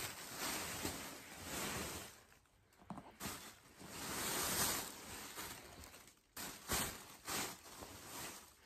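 Plastic packaging rustling and crinkling as folded towels are handled, in two long swells and then a few short bursts near the end.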